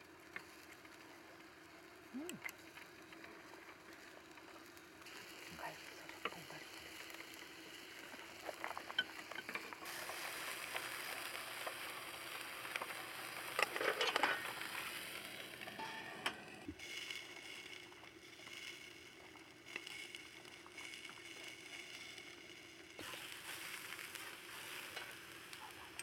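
Lamb ribs sizzling on a wire grill over hot coals, loudest around the middle, with scattered light clicks of metal tongs.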